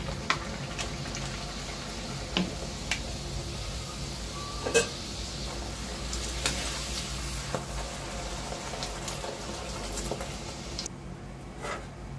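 Puri deep-frying in hot oil in a steel kadai, the oil sizzling steadily, with several sharp taps of a slotted spoon against the pan, the loudest about five seconds in. The sizzle drops away abruptly near the end.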